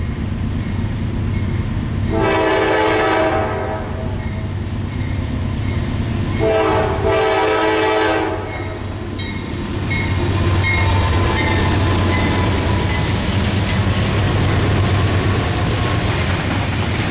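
A train's air horn sounds two blasts: a short one, then a longer one a few seconds later. Then the train passes, with a steady low engine rumble and the noise of wheels on the rails building and holding loud.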